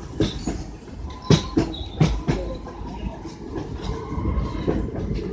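Passenger train running along the track: a steady rumble with the clickety-clack knocks of the wheels passing over rail joints, some coming in pairs.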